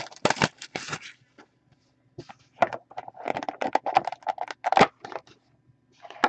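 Plastic wrapping of a trading card pack crinkling and tearing in several short bursts of crackle as the pack is opened.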